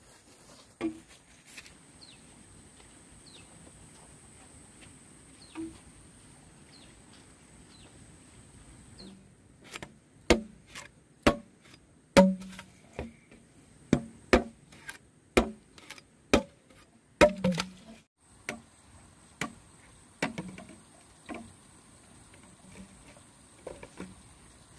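Knife chopping into a green bamboo tube: a series of sharp woody strikes, one or two a second, starting about ten seconds in, with lighter knocks after the main run.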